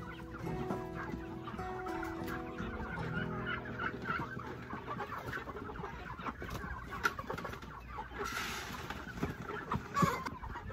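A flock of broiler chickens clucking, with many short, irregular calls overlapping.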